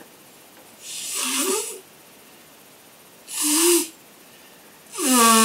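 A person sneezing three times, about two seconds apart. Each sneeze is a short burst of hissing breath with a brief voiced sound in it, and the third, near the end, is the loudest.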